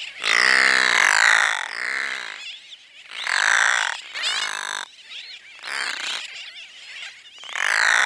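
Brown noddy calling: a series of about six calls with short pauses between them, the first one the longest.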